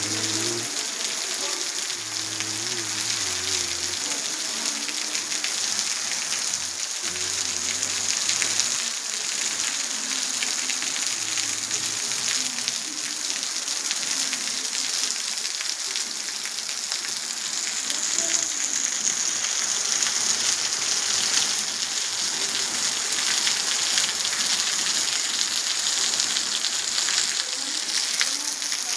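Heavy rain falling steadily, an even, dense hiss of drops on surfaces that keeps up without let-up.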